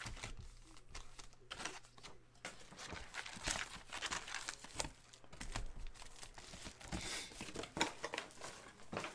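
Panini Select basketball card packs being torn open by hand, their shiny wrappers crinkling and tearing in irregular crackles.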